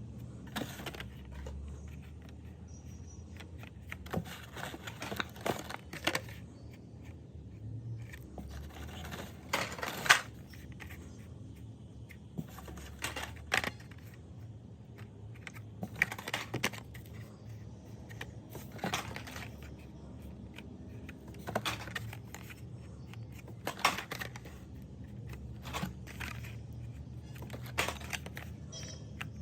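Packaged Hot Wheels die-cast cars being handled: plastic blister cards and cardboard rustling, clicking and knocking in short bursts every two to three seconds, over a low steady hum.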